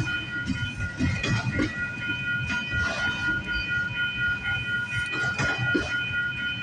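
Freight train cars rolling past slowly, their wheels knocking irregularly over the rail joints. A steady high ringing tone of several pitches carries on over it.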